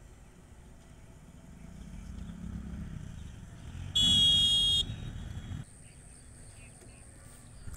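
A motorcycle engine rumbles as it passes, growing louder, and about four seconds in its horn gives one shrill, steady honk lasting under a second, the loudest sound here. The engine sound cuts off abruptly about a second and a half later.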